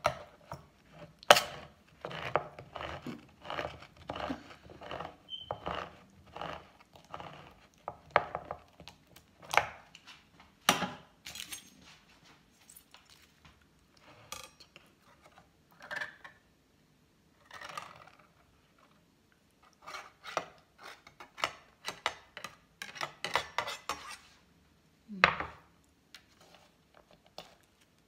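Handheld manual can opener cutting around the lid of a can of coconut milk: a run of sharp metal clicks and clanks, several a second, with a few louder clanks. The clicks thin out in the middle and come thickly again near the end as the lid comes free.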